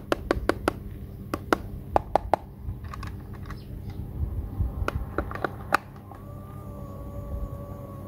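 Sharp plastic clicks and taps as a small battery-powered plastic toy washing machine is handled and its battery compartment is worked. About six seconds in, a steady whine starts: the toy's small electric motor running.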